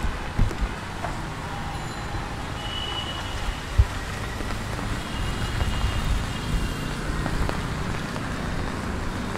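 Steady rain falling on a wet street, with vehicles passing on the wet road. Two short low thumps, about half a second in and near four seconds.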